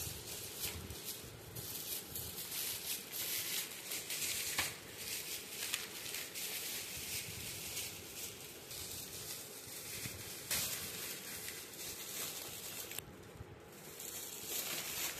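Shiny metallic foil gift wrap being crinkled and torn open by hand: a continuous run of crackling and rustling with sharper rips now and then.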